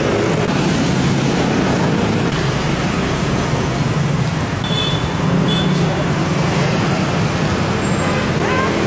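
Steady road traffic noise, with vehicle engines running and passing. A couple of short high-pitched chirps come about five seconds in.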